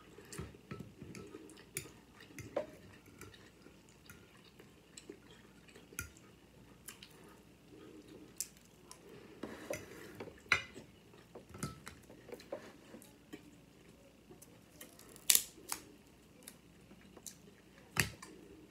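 Eating sounds: a metal fork clinking and scraping on a plate of macaroni and cheese, with soft chewing between. Scattered sharp clicks throughout, the loudest about ten, fifteen and eighteen seconds in.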